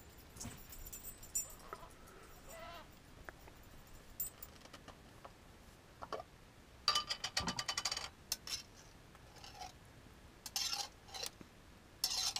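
Light clicks and clatter of cooking: chopped jalapeño peppers tipped from a small bowl into a skillet of onions frying in olive oil, then stirred. A dense run of quick clicks comes about seven seconds in, with a few shorter clusters near the end.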